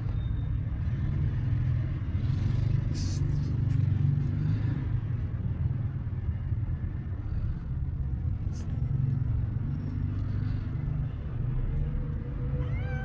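Steady low rumble of city traffic. Near the end, a short rising meow from the stray cat.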